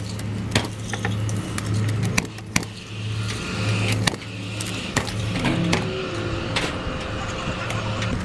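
Paslode cordless framing nailer firing nails into timber, about eight sharp shots spaced roughly a second apart, as the bracing timbers are fixed onto the gable ladder end. A steady low hum runs underneath.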